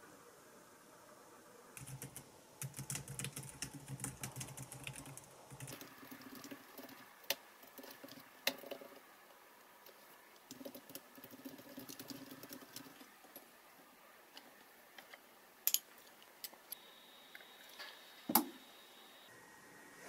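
Typing on a compact keyboard with round low-profile keys: quick runs of light key clicks with short pauses. The clicks thin out to a few scattered ones near the end, the loudest of them a single sharp click.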